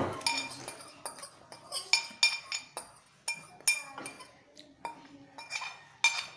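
Tableware clinking: about a dozen sharp, ringing taps of a ceramic plate and a drinking glass, coming at an irregular pace.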